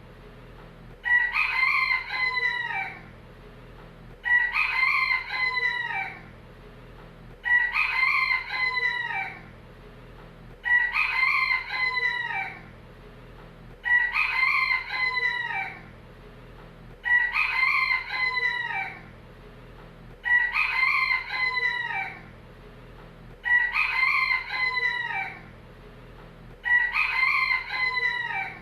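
Rooster crowing over and over, the same cock-a-doodle-doo repeated about every three seconds, nine times in all.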